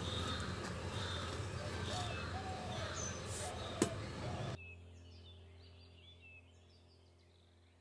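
Background noise with small birds chirping now and then, and a single sharp tap a little before halfway. A little past halfway the sound drops abruptly to a faint low hum, with birds still chirping faintly.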